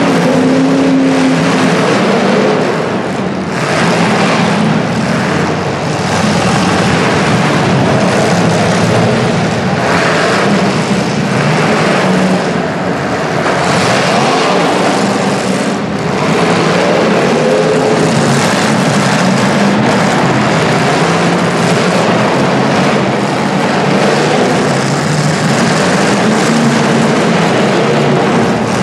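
Demolition derby cars' engines running and revving together in a dense, continuous roar, with engine pitches rising and falling as the drivers throttle.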